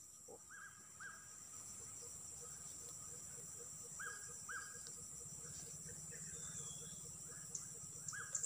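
Outdoor rural ambience: insects chirring in a steady high drone, with a bird repeating short paired calls a few times.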